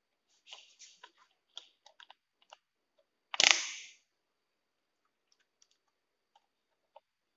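Plastic clicking and scraping as pliers pry at the housing of an old ceiling-fan speed switch, then a single loud crack about three and a half seconds in as the plastic cover snaps loose, followed by a few faint ticks.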